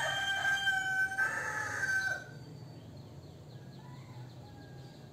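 A rooster crowing once, a long call lasting about two seconds. A fainter call follows about four seconds in.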